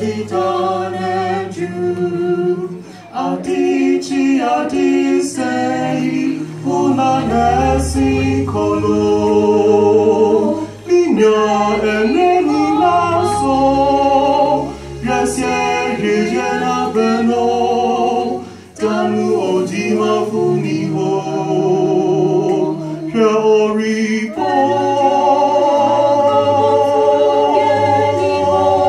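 A man and a woman singing a gospel song together into microphones, with low held notes changing in steps beneath the voices.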